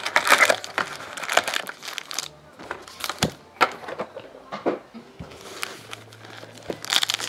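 Foil trading card packs crinkling and clicking as they are handled and set down on a table, in short scattered bursts.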